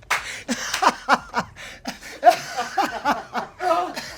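Several men laughing and chuckling together in short bursts.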